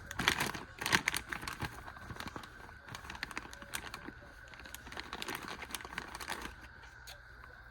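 Rummaging through plastic packaging: irregular crinkling and light clicks, busiest and loudest in the first second or two, then softer handling.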